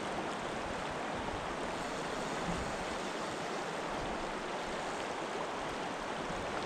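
Shallow, fast river water flowing over a stony riffle: a steady, even rushing.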